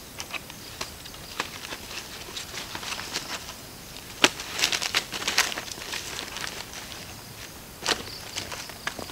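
Dry sticks and dead leaves crackling and rustling as firewood is gathered by hand, with a sharp crack of a branch about four seconds in and another near the end, then footsteps crunching through the dry leaf litter.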